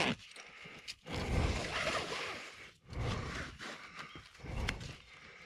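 A rider breathing hard close to the microphone: about three long breaths, each a rush of air with a low buffeting thump.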